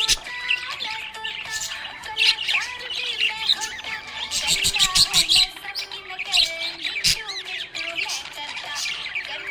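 Several small pet parrots chirping and chattering together: many overlapping quick, high chirps and whistled trills with the odd squawk.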